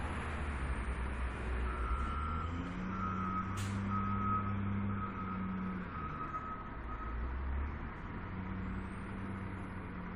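Caterpillar front loader's diesel engine working, its pitch rising for a few seconds under load and then dropping back, while a reversing alarm beeps repeatedly from about two seconds in until about seven seconds in.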